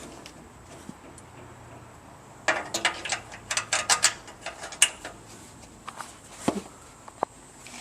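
Light metal clinks and taps, a quick cluster of them about two to five seconds in and a few more near the end: hinge pin, spring and cotter pin being worked into the cellar door's hinge.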